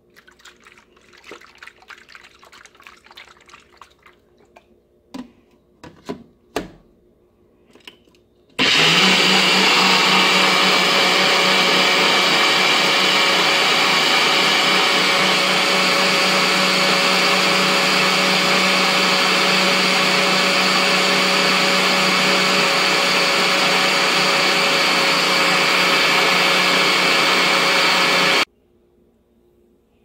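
NutriBullet blender motor blending soaked oats with water. After some handling noise and a few knocks, it starts abruptly, runs loud and steady with a held hum for about twenty seconds, and cuts off suddenly near the end.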